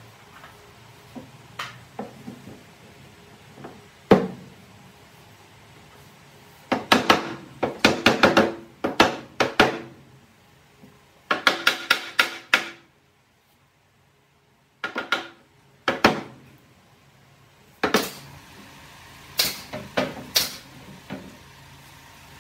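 Sharp wooden knocks and taps as carved wooden altar panels are handled and fitted together, some in quick runs of several knocks, others single.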